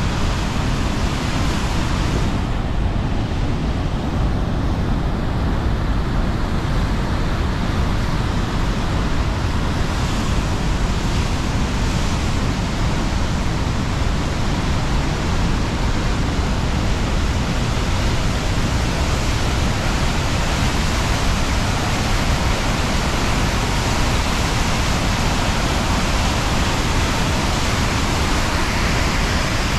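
Whitewater waterfall and rapids on a mountain river, a loud, steady rushing of falling water.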